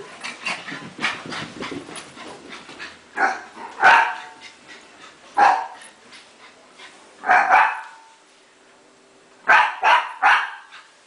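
A small dog barking at play, about eight sharp barks in singles, a quick pair and a close group of three near the end, after a patter of light ticks at the start.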